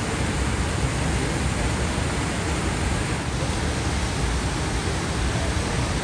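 Brooks Falls, a wide river waterfall, rushing steadily: an even, unbroken wash of falling water with a deep low rumble.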